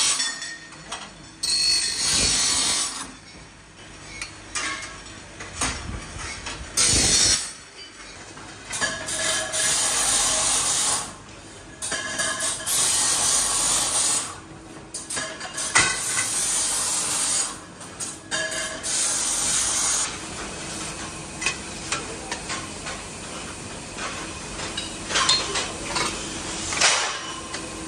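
Bicycle factory work noise: repeated loud bursts of hissing that start and stop every few seconds, then a lower steady din with scattered clicks and knocks of metal parts near the end.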